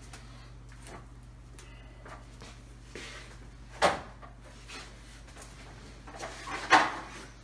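Wooden foosball table cabinet being tipped over by hand in its cardboard box: a few faint knocks, a sharp knock about four seconds in, and a louder thump with scraping near the end as it comes down.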